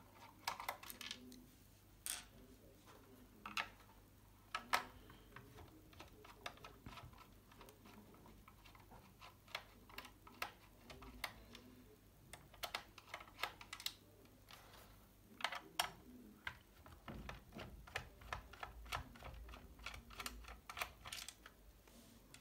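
Irregular small clicks and ticks of a screwdriver backing screws out of a mini PC's plastic bottom plate, with the case being handled. A few louder clicks stand out among the faint ones.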